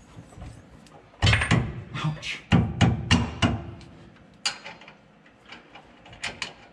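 Irregular heavy metal clunks and knocks as a steel anti-sway bar is handled and hung on its mounting brackets. A cluster of knocks comes in the first half, with single knocks later.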